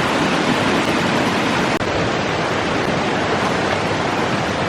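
Waterfall on a river, a loud steady rush of falling water. It cuts out for an instant a little under two seconds in.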